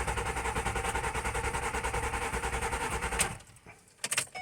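Starter cranking the 2008 Mercury Mariner's 3.0L V6, a steady rhythmic churn of about five pulses a second, without the engine catching; it stops about three seconds in, followed by a few sharp clicks. It will not fire because the PCM connector is unplugged.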